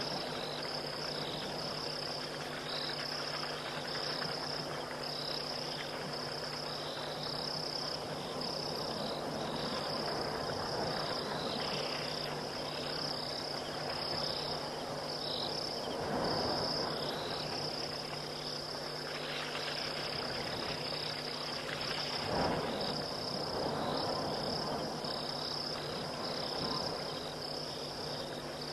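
Night chorus of insects: a steady high trill with faster pulsing chirps just beneath it, over a hiss of background noise. Twice, about sixteen and twenty-two seconds in, a brief louder rush rises through it.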